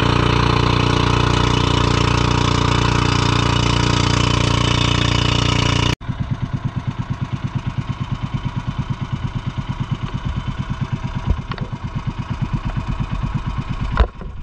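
Small engine running steadily at speed, then after an abrupt cut, idling with a fast, even beat. A sharp knock comes near the end.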